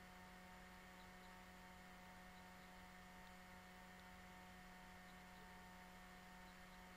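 Near silence: a faint, steady electrical hum, the noise floor of the screen recording.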